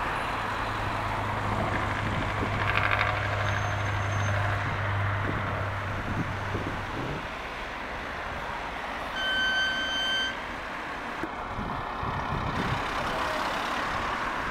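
Heavy trucks running on a road, with a steady low engine drone through the first half. About nine seconds in comes a single high beep lasting about a second.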